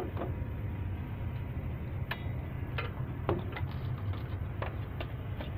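Irregular light clicks and taps, about eight of them, from hands and a pry bar working the unloader solenoid coil off a bus A/C compressor, over a steady low hum.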